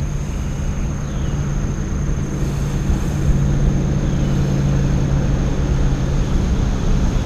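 Steady low drone of a distant engine, with wind rumbling on the microphone and a thin, steady high whine over it. The drone fades near the end.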